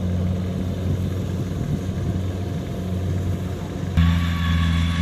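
Kubota combine harvester's engine running steadily at working speed while harvesting rice, a constant low drone. About four seconds in, the sound jumps to a louder drone with a thin higher whine over it.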